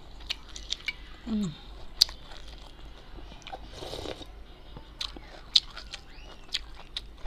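Close-up mouth sounds of a person eating salmon sinigang: wet chewing and lip smacks with many short sharp clicks, a brief closed-mouth "mm" about a second in, and a short sip of broth from a spoon around four seconds in.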